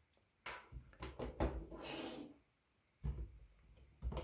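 Handling noise on a tabletop: a run of knocks and clunks with a short scraping rustle, then a few lighter knocks near the end.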